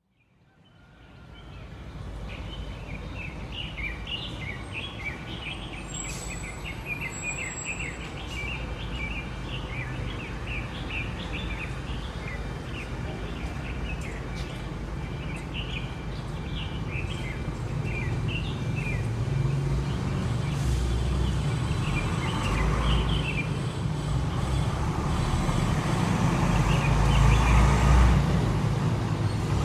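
City street ambience: a steady low rumble of road traffic with many birds chirping over it. The sound fades in at the start, and the traffic grows louder in the last third as the chirping thins out.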